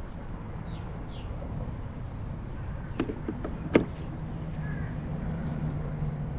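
Birds calling now and then over a low steady outdoor rumble, with four sharp clicks about three to four seconds in, the last and loudest just before four seconds.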